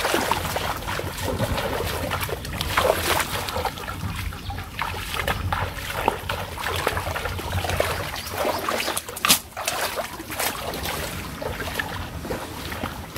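A person wading through shallow floodwater, splashing and sloshing with each step, with one sharper knock about nine seconds in.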